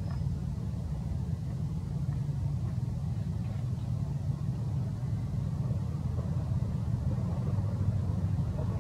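Steady low rumble throughout, with no clear animal calls.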